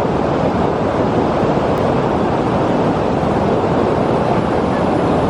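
Rushing water of a waterfall and river: a loud, steady, even noise that does not change.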